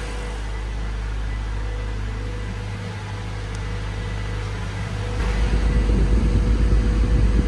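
A 1999 Honda Civic Si EM1's 1.6-litre DOHC VTEC four-cylinder idling steadily, just fitted with a new timing belt, tensioner, water pump and idle air control valve, and running smoothly after the service. Its low drone gets louder about five seconds in.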